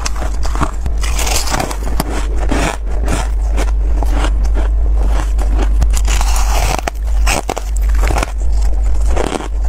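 Freezer frost being bitten and chewed close to the microphone, with fingers breaking and crumbling frost from a plastic tub; a dense, continuous crunching and crackling.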